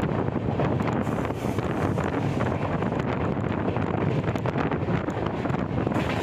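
Wind buffeting the microphone held out of a moving passenger train, over the steady running noise of the coaches on the track.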